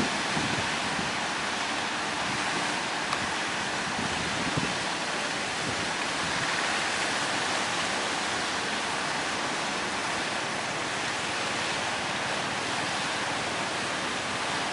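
Strong wind blowing, a steady rushing noise with occasional low thumps of wind buffeting the microphone.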